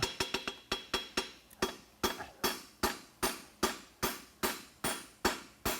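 Farrier's hammer striking a hot steel horseshoe bar on the anvil in a steady rhythm, about two and a half blows a second, with a light anvil ring after the blows. He is forging and bending the toe corner of a hind toe-cap shoe.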